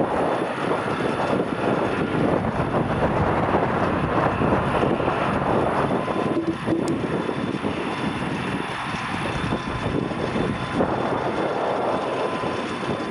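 Gulfstream G650ER's twin Rolls-Royce BR725 turbofan engines running at low taxi power as the jet taxis, a steady rushing jet noise.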